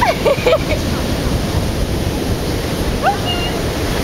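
Surf and wind on the microphone making a steady rushing noise, with a few brief high-pitched squeaks near the start and again about three seconds in.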